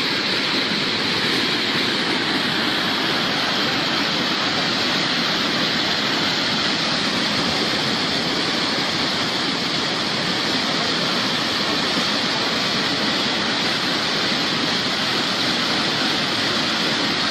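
Floodwater rushing steadily, a continuous even wash of churning water with no let-up.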